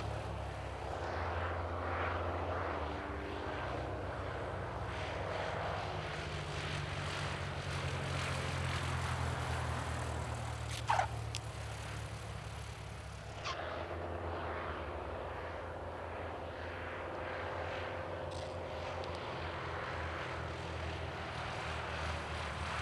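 Saab Safari propeller trainers' four-cylinder piston engines droning steadily overhead, their pitch shifting slowly as the formation passes. A brief sharp sound cuts in about eleven seconds in.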